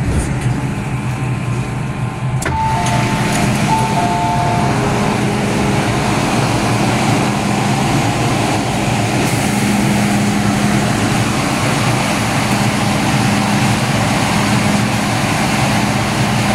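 MTR M-Train standing at a station platform with its doors open: a steady low hum from the train, a sharp clack about two seconds in, then a two-note chime sounding twice.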